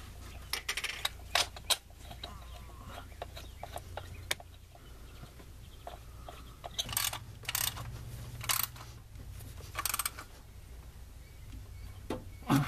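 Scattered metallic clicks, clinks and short scrapes as an engine mount and its steel bolts are worked into place by hand, over a low steady hum.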